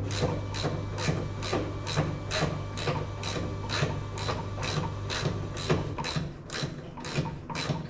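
Hand ratchet wrench worked back and forth, a regular clicking stroke about twice a second, as the side indicator light's fastenings are undone. A steady low hum runs underneath and stops near the end.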